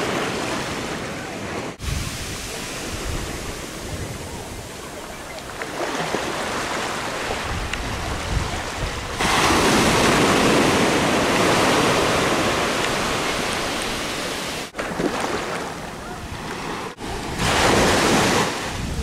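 Ocean surf breaking, a steady rush of waves with wind buffeting the microphone. It swells louder about halfway through and breaks off abruptly a few times.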